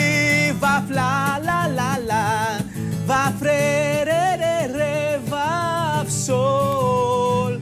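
A man singing a melody to his own strummed acoustic guitar.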